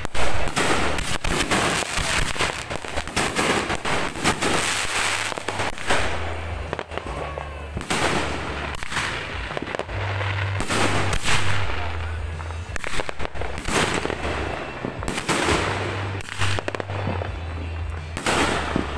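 Aerial fireworks going off: rapid crackling bangs for the first several seconds, then separate loud shell bursts every second or two.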